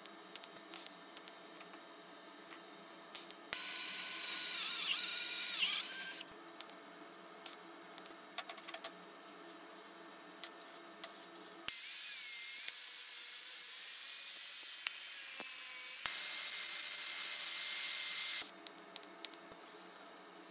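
TIG welding arc struck twice: a burst of about two and a half seconds, then a longer one of about seven seconds, each a steady hiss with a wavering whine that starts and cuts off sharply. Light clicks of parts being handled between the welds.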